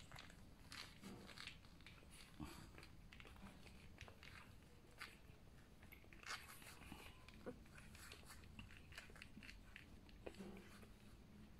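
Faint, irregular wet clicks and smacks of newborn puppies suckling at their mother's teats.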